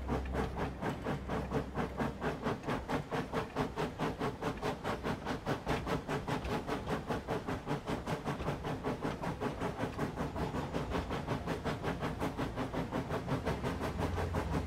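Steam train running steadily, a fast, even rhythm of chuffs over a continuous hiss and low rumble.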